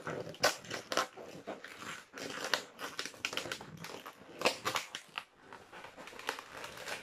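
Long latex modelling balloons squeaking and rubbing against each other as hands twist and squeeze them, in an irregular run of short squeaks and creaks.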